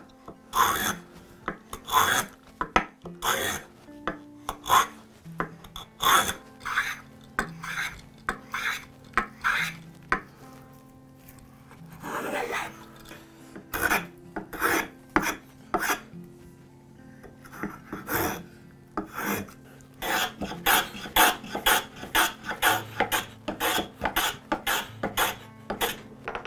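A metal bench plane takes repeated strokes along the corners of a walnut block, each pass a short scraping hiss as the iron peels off a shaving. From about two-thirds of the way in, the strokes come faster and shorter.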